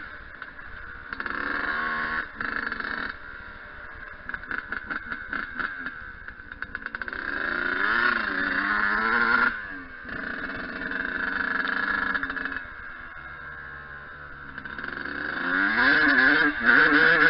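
Yamaha YZ125 two-stroke single-cylinder dirt bike engine being ridden, revving up and dropping back repeatedly as the throttle opens and closes, loudest in the middle and again near the end.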